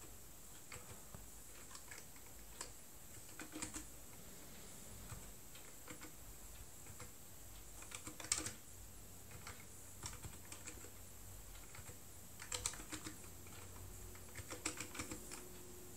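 Faint, scattered keystrokes on a newly assembled Atreus mechanical keyboard with Matias switches, typed slowly in single clicks and a few short runs as the keys are tried out.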